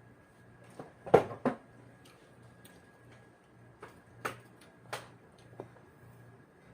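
Scattered clicks and taps of eating and handling food and utensils, with a sharp pair about a second in and a few lighter ones later.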